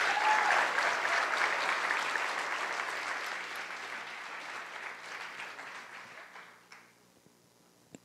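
Audience applause, loudest at the start and fading away over about seven seconds, with a single click near the end.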